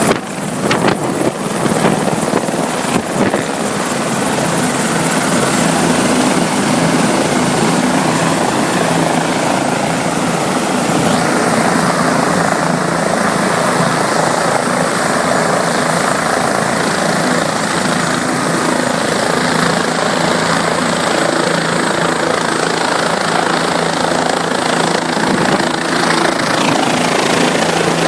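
Helicopter rotor and turbine noise, loud and steady, with a few uneven knocks in the first few seconds.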